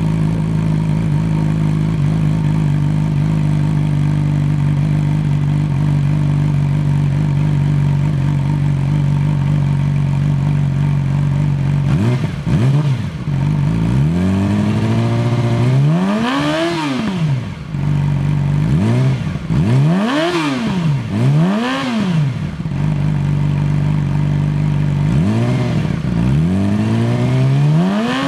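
2008 Yamaha R6 inline-four engine breathing through a Toce slip-on exhaust with no resonator, idling steadily just after startup. In the second half it is revved in several quick throttle blips, each rising and falling in pitch.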